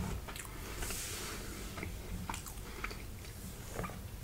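A person chewing food close to the microphone, with small wet mouth clicks and smacks scattered through.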